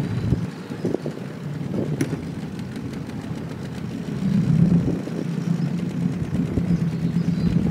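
Small outboard motor running at low speed, pushing a small boat slowly away from shore, with a steady hum that gets a little louder about four seconds in.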